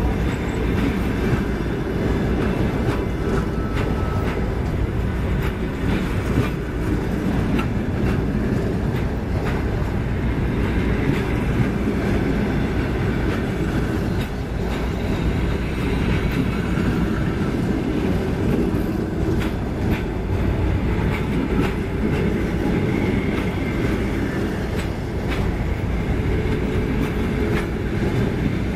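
Coaches of a Russian long-distance passenger train rolling past at speed: a steady rumble of wheels on rails with frequent sharp clacks as the wheels cross the rail joints.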